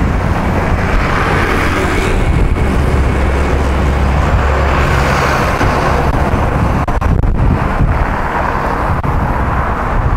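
A heavy dump truck's diesel engine rumbling as it passes close alongside, its low rumble strongest a few seconds in, over steady wind and rolling noise from a moving bicycle.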